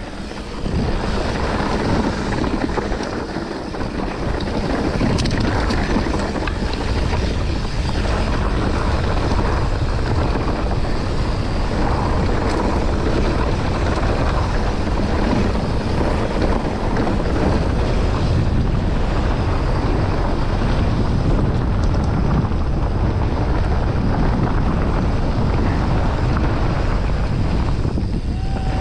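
Wind buffeting the microphone of a rider's camera at speed, a steady rushing noise with heavy low rumble that comes up about a second in, with no clear engine tone in it.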